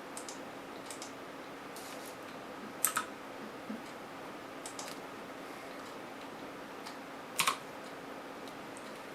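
Scattered clicks from a computer keyboard and mouse, a few at a time with pauses between, the loudest a close pair about three seconds in and another about seven and a half seconds in, over a faint steady hum.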